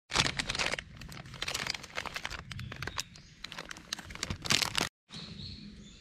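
Plastic bag of pre-cut salad crinkling as it is handled, loudest just after the start and again shortly before it cuts off about five seconds in.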